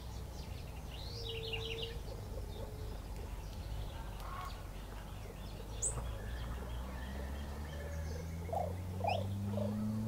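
Backyard birdsong around a seed feeder: a quick run of high chirps about a second in and scattered single sharp calls later, over a steady low rumble. Near the end come a few short, lower rising calls and a low hum that slowly climbs in pitch.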